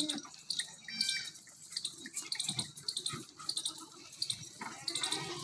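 Goats moving in as a herd: many short, scattered clicks and taps, typical of hooves on hard ground, with a goat bleating near the end.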